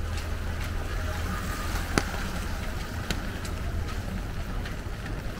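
Rainy city street ambience: a steady hiss of light rain over a low traffic rumble, with scattered sharp ticks and one louder click about two seconds in.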